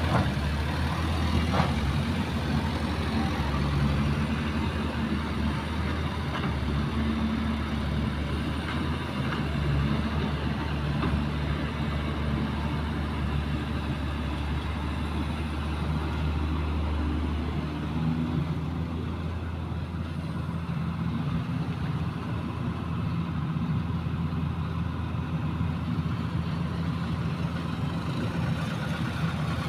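Diesel engines of dump trucks and a hydraulic excavator running steadily, a low continuous engine note whose pitch shifts slightly about two-thirds of the way through.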